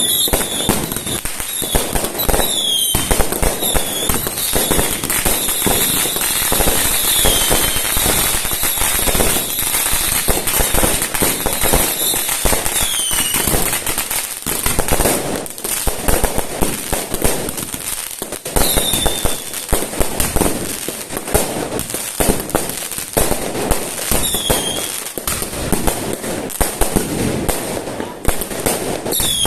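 Fireworks going off in a dense, continuous barrage of bangs and crackles, with short falling whistles every few seconds.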